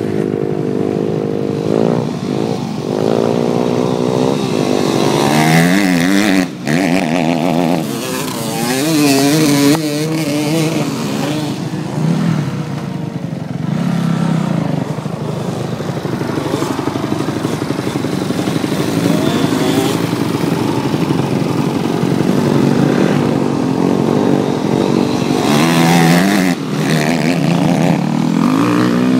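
Off-road motorcycle engine being ridden hard, its pitch rising and falling again and again as the throttle opens and closes through the gears. It breaks off briefly about six seconds in.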